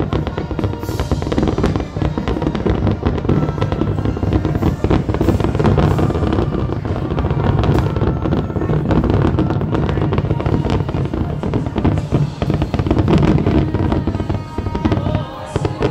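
Fireworks finale barrage: aerial shells bursting in rapid, overlapping booms and crackles with no pause between them.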